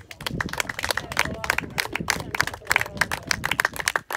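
Applause: several people clapping hands close by, a dense rapid patter of claps that starts suddenly and holds steady, with a few voices mixed in.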